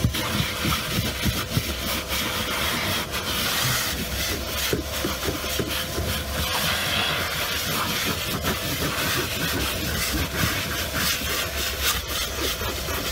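Vacuum cleaner running steadily with a faint constant whine, its nozzle rubbing and scraping over boot carpet with frequent small clicks.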